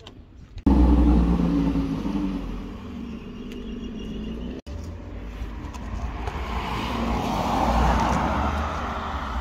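A car driving past on a road. Its noise swells to a peak near the end and then fades, over a steady low rumble that starts abruptly about half a second in.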